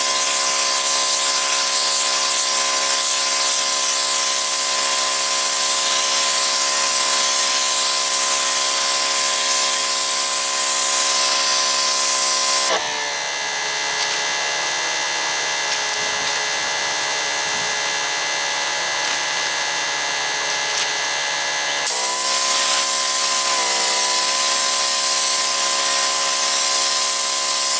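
Pressure washer with a wet sandblasting nozzle blasting grit and water into a rusty drum: a loud, steady spray hiss over the machine's steady hum. About 13 seconds in the trigger is released, the hiss stops and the machine's note shifts. About nine seconds later the spraying starts again.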